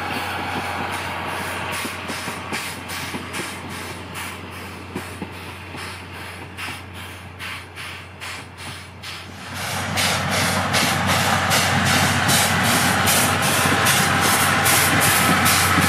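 Tobu Railway C11 tank steam locomotive working a train, its exhaust chuffing in steady beats of about three a second. The chuffs get much louder and heavier about ten seconds in.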